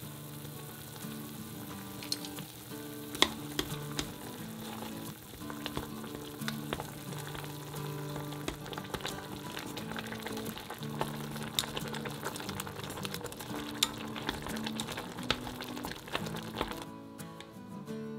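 Pot of instant ramen boiling with a steady bubbling hiss, with sharp clicks of chopsticks against the stainless-steel pot as the noodles and seaweed are stirred. The bubbling stops about a second before the end, leaving background music.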